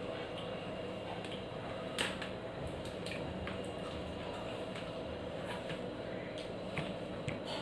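Eating by hand: fingers mixing rice on a steel plate, with wet squishing and light clicks against the metal over a steady background hiss. The sharpest click comes about two seconds in, and a few smaller ones come near the end.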